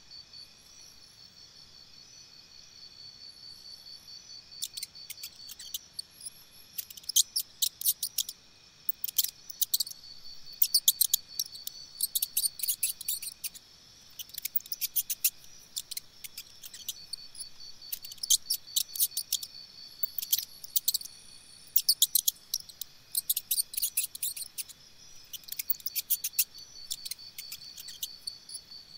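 Crickets trilling steadily, with bursts of high, sharp chirps coming in quick clusters from about five seconds in.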